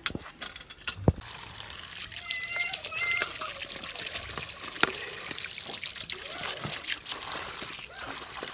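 Water pouring steadily over chopped turnips and carrots in a steel colander as hands rub and rinse the pieces. The pouring starts about a second in.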